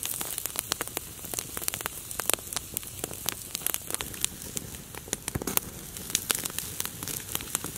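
Campfire crackling, with irregular sharp snaps several times a second.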